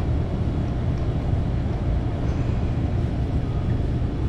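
Steady low rumble of rooftop HVAC equipment running.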